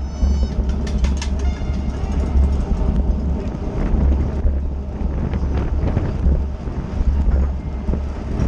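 Wind buffeting a bike-mounted onboard camera's microphone over the rolling rumble of a fixed-gear race bike at speed. A few brief high squeaks and clicks come in the first two seconds.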